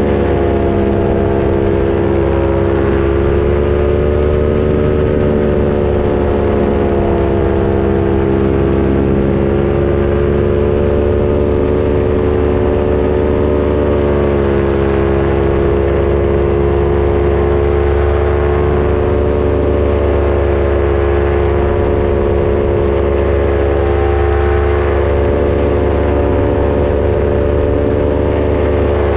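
Paramotor engine and propeller running steadily in flight, a loud constant drone whose pitch wavers gently up and down with small throttle changes.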